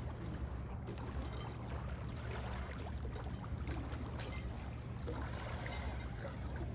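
Small lake waves lapping and trickling at a stone shore edge, over a steady low rumble.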